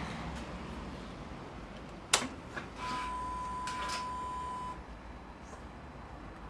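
BMW S1000R being switched on before starting: a sharp click, then a steady high-pitched electronic tone for about two seconds as the bike primes.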